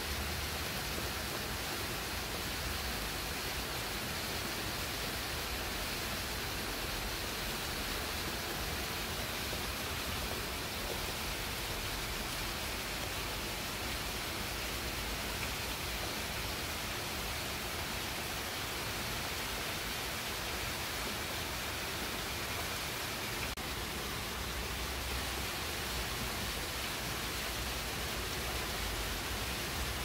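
Steady rain falling on the leaves of a shrub: an even, unbroken hiss.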